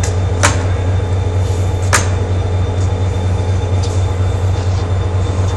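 ITX-Cheongchun electric train humming steadily at the platform as it starts to pull away on departure, with two sharp clicks about half a second and two seconds in.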